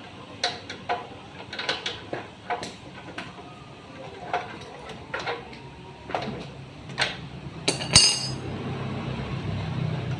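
Metal tools and fittings clinking and knocking during pipe work: a dozen or so sharp, irregular taps, the loudest about eight seconds in, with a low hum building near the end.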